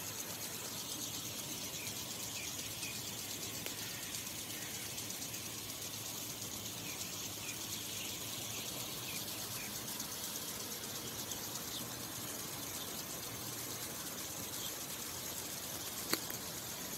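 Outdoor ambience: a steady hiss with small birds chirping now and then, and one sharp click near the end.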